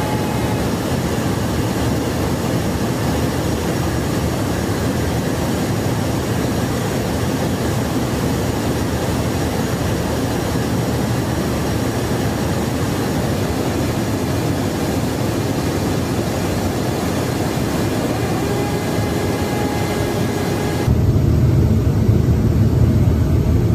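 Steady in-flight noise of a KC-10 Extender tanker: an even roar of airflow and engines heard from inside the boom operator's station, with faint steady tones in it. About twenty seconds in it switches abruptly to a louder, deeper rumble with less hiss.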